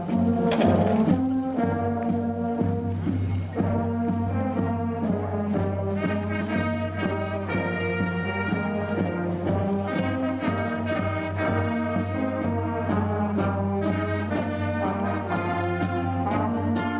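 Brass marching band playing a march, trombones and trumpets to the fore over a steady beat.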